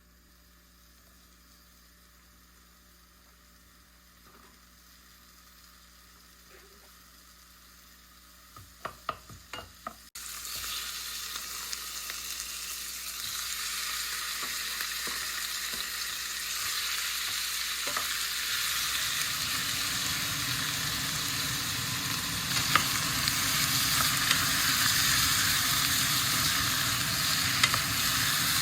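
Food sizzling in a hot frying pan. It starts suddenly about ten seconds in, after a few sharp clicks, grows louder, and has occasional pops and ticks.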